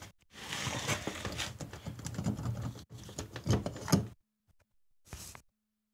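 Ural motorcycle cylinder being worked off its studs and piston by hand: metal scraping, rattling and clinking for about four seconds, then a single short scrape about five seconds in.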